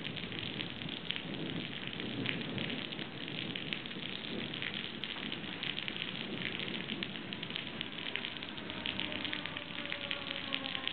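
Steady heavy rain with many close drop ticks. From about three-quarters of the way in, an approaching electric train's whine rises out of it, several tones sliding slowly down in pitch and growing louder.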